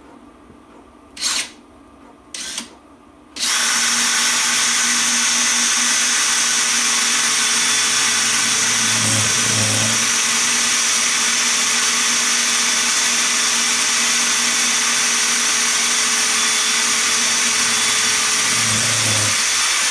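Cordless drill boring a 3.5 mm pilot hole into the steel centre of a differential oil seal: two short blips of the trigger, then the drill runs steadily for about sixteen seconds and stops near the end.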